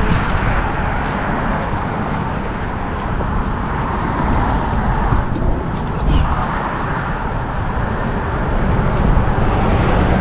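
Road traffic passing on the bridge, a continuous rush that swells and fades several times as vehicles go by, mixed with wind on the microphone.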